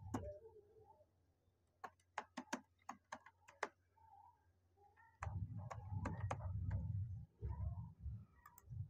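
Faint computer keyboard typing: a quick run of single key clicks about two seconds in, then more keystrokes in the second half over a low, muffled background sound.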